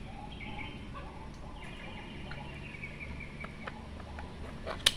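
Light metal ticks from a starter motor's brush holder being worked loose with a hand tool, with one sharp metallic click near the end. A faint high chirping sound runs through the middle.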